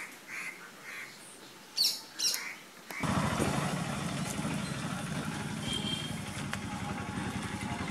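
A few short, high bird chirps over quiet outdoor ambience. About three seconds in, the sound cuts abruptly to a louder, steady low rumble that runs on.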